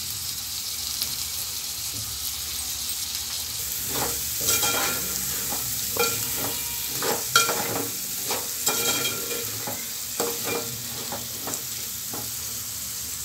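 Onions, green chillies and soaked chana dal sizzling steadily in hot oil in a metal pan. From about four seconds in, a metal spoon stirs the mix, scraping and clinking against the pan in a run of short strokes.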